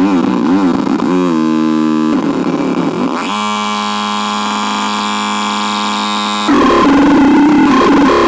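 CASENAX synthesizer playing harsh electronic tones. A warbling pitch sweeps up about a second in, then gives way to steady buzzy drones. Near the end it cuts abruptly to a louder, noisy, distorted texture.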